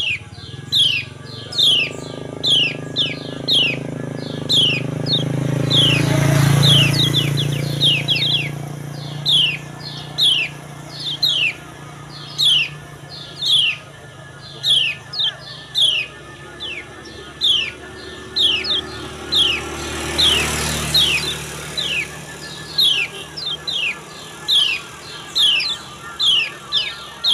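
Female lemon-bellied white-eye (kecial kuning) giving its 'ciak' call over and over, short high falling notes about one and a half a second. A low rumble swells and fades twice, about a quarter and three quarters of the way in.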